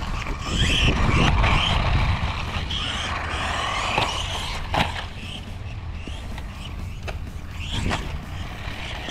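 Blackzon Slyder Turbo 1/16-scale brushless 4x4 RC truck running on concrete: the electric motor and gears whine, rising and falling with the throttle, over tyre rumble. A few sharp knocks from bumps or landings come about four seconds in, just before five seconds and near eight seconds.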